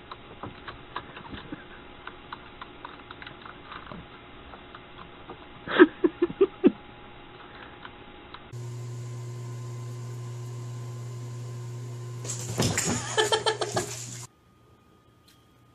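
Typing on a computer keyboard: a run of light key clicks, broken about six seconds in by a quick series of five or six loud sounds. About eight and a half seconds in the clicks give way to a steady low hum, with a louder burst of sound over it near the end, and then everything cuts off suddenly.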